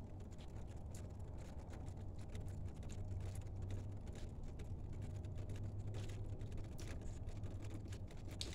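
Low, steady rumble of a distant train, swelling a little in the middle, with faint scattered light ticks over it.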